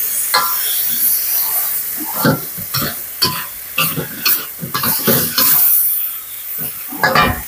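Metal spatula and ladle scraping and clanking against a steel wok while pork belly and yard-long beans in red curry paste are stir-fried, over a steady sizzle. A louder thump comes near the end.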